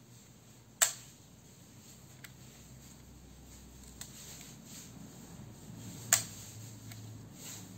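Leaf shutter of a Ricohflex twin-lens reflex camera, a Citizen MV, released by hand: two sharp clicks about five seconds apart, with a couple of fainter clicks between them.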